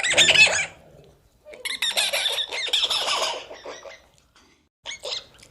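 Shrill, high-pitched animal calls: a short loud burst, then a longer run of wavering squawks, and two brief calls near the end.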